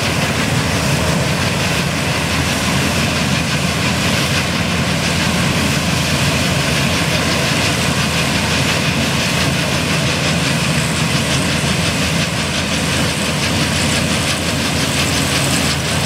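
John Deere 45 self-propelled combine running as it harvests wheat: the engine and threshing machinery make a steady, loud mechanical drone.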